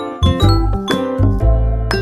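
Background music: a light tune of quick, struck bell-like notes over a low held bass line.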